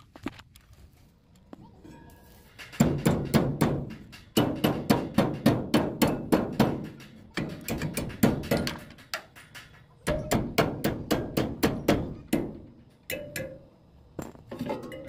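Rapid knocking on the rice thresher's belt pulley hub, in runs of strikes about four a second with short breaks between runs.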